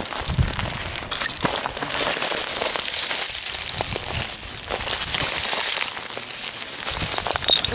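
Boots crunching and sliding over loose shale scree, the broken rock plates grinding and clinking underfoot with many scattered clicks.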